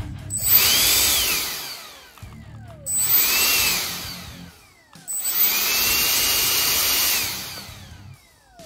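A 50 mm 12-blade electric ducted fan with a 4600KV brushless motor, bench-run three times from a servo tester. Each time it spools up to a high rushing whine, holds briefly and winds down with a falling whine. The first two runs are short and the third, starting about five seconds in, is the longest.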